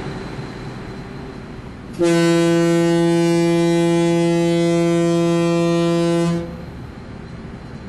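Ship's horn of the double-deck ferry ms Prins Johan Friso sounding one long, steady, deep blast of about four seconds, starting about two seconds in, over a steady background rumble.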